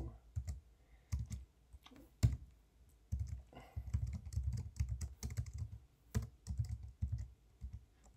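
Typing on a computer keyboard: short runs of quick keystrokes separated by brief pauses.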